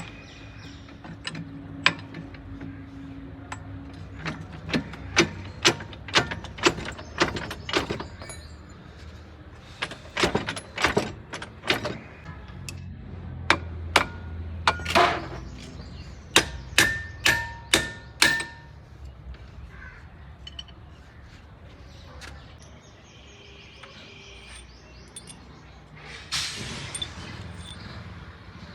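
Metal parts and hand tools being struck and handled: a long run of sharp metal taps and clinks, some ringing briefly, then a quieter stretch and a short noisy burst near the end.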